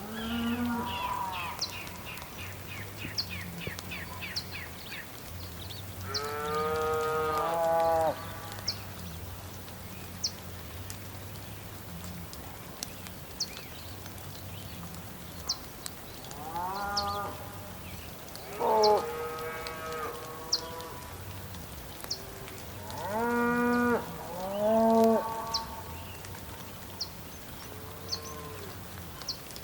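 Cattle mooing: about six long, drawn-out calls that fall in pitch, some of them close together, with short high ticks scattered between them.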